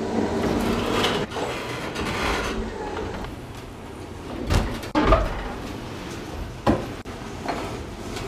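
Work on an old wooden boat's rotten woodwork: about three seconds of scraping and rubbing, then four sharp knocks and thuds spread over the next few seconds.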